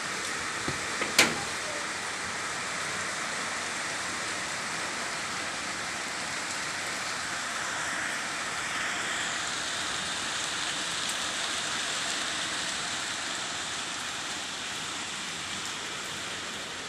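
Steady rain falling and pattering on surfaces, a continuous hiss. A single sharp knock, the loudest sound, comes about a second in.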